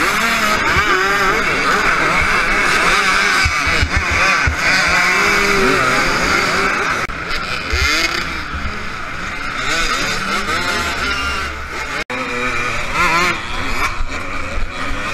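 Many dirt bike engines revving together in a tight pack, their pitches rising and falling over one another, heard from a rider's own bike. About twelve seconds in there is a sudden break, and the sound switches to another bike's engine.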